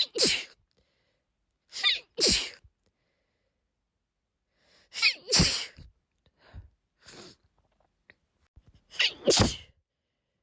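A woman in a sneezing fit: four loud sneezes a few seconds apart, with two softer sounds between the third and fourth.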